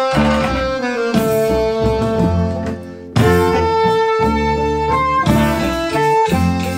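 Live folk band with a horn section playing an instrumental passage: saxophone, trumpet and bass clarinet hold notes over banjo, upright bass, accordion and drums. The music drops back briefly about three seconds in, then the full band comes back in.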